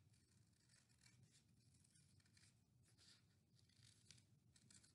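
Very faint snipping of scissors cutting through folded paper, a short snip several times a second.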